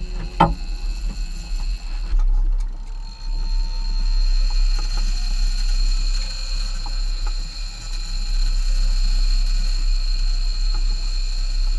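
Big-game fishing reel's drag giving a steady high whine as a giant bluefin tuna pulls line against the bent rod, over a low steady rumble. A sharp knock sounds about half a second in.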